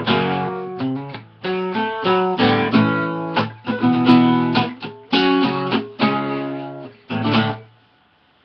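Acoustic guitar strumming chords in short phrases with brief breaks, an instrumental passage of a song; the strumming stops about seven and a half seconds in.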